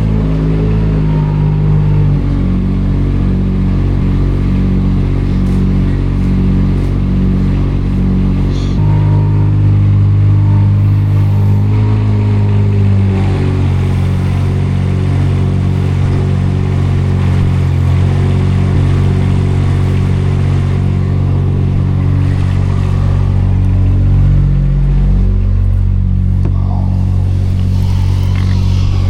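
Tractor engine running, loud and steady, its speed stepping up and down every few seconds as the front loader is worked.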